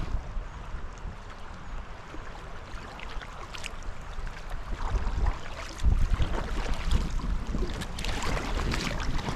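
Wind buffeting the microphone, with a stronger gust about six seconds in, while a kayak paddle splashes in the river now and then.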